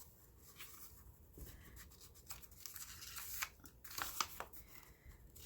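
Thin paper clippings rustling and crinkling as they are handled and leafed through, in short, scattered rustles that get louder about three and a half seconds in.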